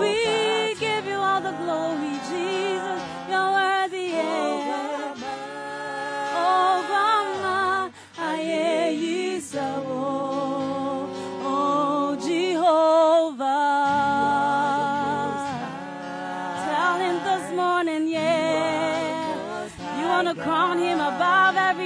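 A woman's voice singing gospel worship through a microphone, long held notes that waver in pitch, with no clear words.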